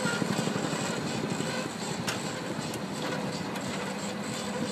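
Sod harvester running steadily as its conveyor and stacker lay cut turf onto a pallet: a continuous mechanical rattle and hum, with one sharp click about two seconds in.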